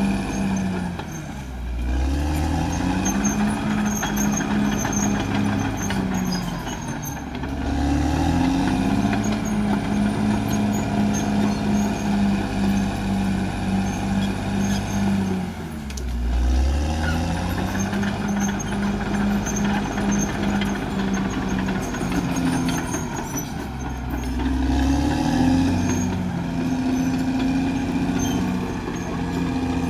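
Caterpillar D6R XL bulldozer's diesel engine running hard, its pitch dipping sharply and climbing back about four times as the load on it changes.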